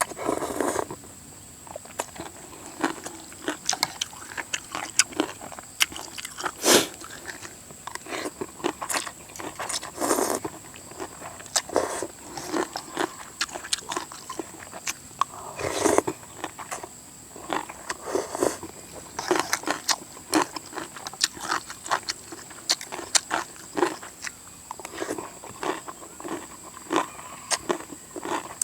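A person eating khao pun rice noodles in coconut curry: irregular slurps, lip-smacks and chewing, with a few louder smacks.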